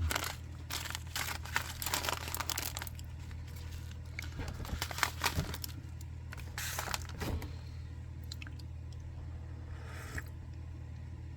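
Plastic tea sample packets being handled and crinkled, with dense irregular crackling in the first few seconds, then scattered crinkles, over a steady low hum.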